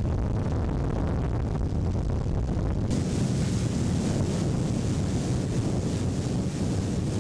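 Wind buffeting the microphone over the rush of water from a personal watercraft running at speed, with a brighter hiss of spray coming in about three seconds in.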